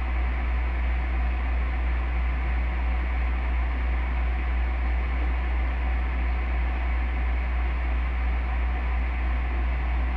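Steady low hum with an even hiss underneath, unchanging throughout: background noise of the recording, with no other sound.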